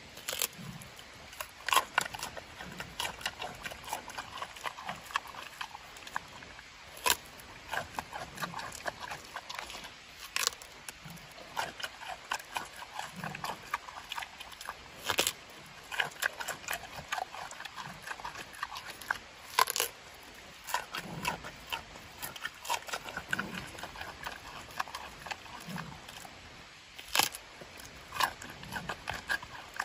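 Giant panda biting and chewing raw pumpkin: a steady run of irregular wet crunches and clicks, with a few much louder crunching bites every few seconds.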